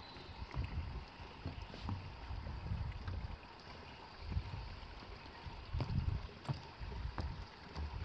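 Footsteps and handheld-camera handling noise while walking: uneven low thuds with a few light clicks.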